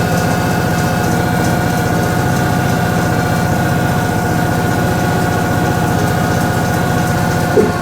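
Toshiba ZABOON top-loading washing machine spinning at speed, a steady whine over a fast low hum, with one short knock near the end.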